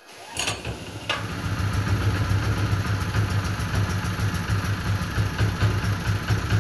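Powerhorse 3-inch full trash water pump's small gasoline engine starting up, catching at once and then running steadily, with the pump turning dry without water. It starts easily and seems to run well.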